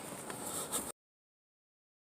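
Faint outdoor background with a steady high insect buzz and a few short chirps, like crickets, that cuts off abruptly to dead silence about a second in as the recording ends.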